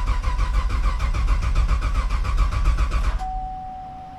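Starter motor cranking the Camaro's LS3 V8 with injectors and coils disconnected, so it turns over in a rapid, even rhythm without firing. It stops about three seconds in, and a steady high electronic tone comes on.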